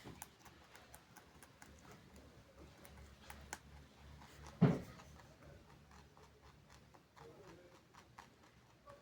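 A pet animal chewing pumpkin peel, a scatter of small crunching clicks, with one louder dull thump about halfway through.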